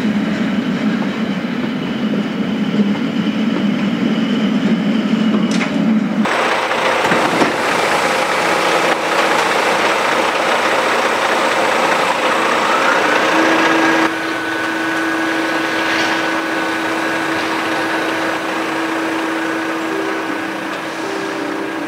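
A Rhaetian Railway train's steady low hum, then the machinery of a container crane loading a swap body: a whine rises in pitch and settles into a steady high tone over a constant hum.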